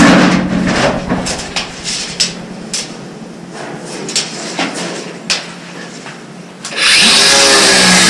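Irregular scraping, rubbing and knocking of hand work on a drain-pipe installation, then a power tool starts about seven seconds in and runs loud and steady, the loudest sound here.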